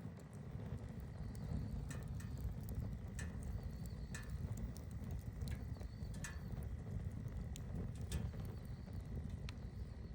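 Wood campfire burning, with sharp, irregular crackles and pops, about one a second, over a steady low rumble.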